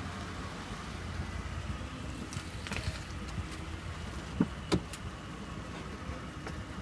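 Pickup truck's driver door unlatching and opening: two sharp clicks about a third of a second apart, over a steady low hum.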